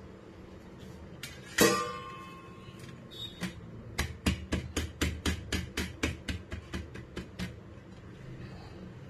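A round glass baking dish clanks down against a steel plate with a ringing knock about a second and a half in. Then a hand taps the bottom of the upturned glass dish about a dozen times, roughly four taps a second, to loosen the baked chocolate cake so it drops out onto the plate.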